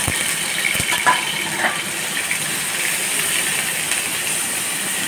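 Onion paste frying in hot mustard oil in a steel pan: a steady sizzle, with a few clicks of a spatula on the pan about a second in.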